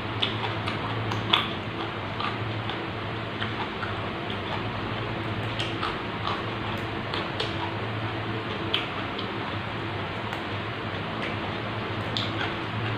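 Scattered small clicks and crackles of close-miked chewing and of fresh greens being plucked off their stems by hand, over a steady hiss and low hum.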